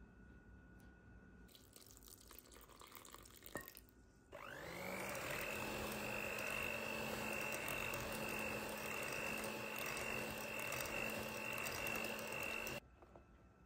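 Soft scraping of a wooden spoon stirring dry flour in a bowl. Then an electric hand mixer whines up to speed, runs steadily with a constant whine as its beaters work through thick cake batter, and cuts off suddenly near the end.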